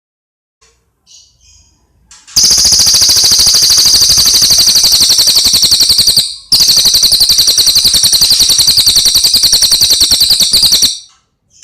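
Cililin songbird singing: a few faint short calls, then two long, very loud, rapid trills of evenly spaced high notes, split by a short break.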